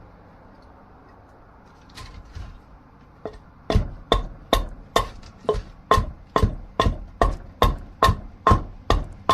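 A few light knocks, then a steady run of sharp blows of a tool on a dried wooden axe-handle blank being shaped, just over two strikes a second, each with a short ring.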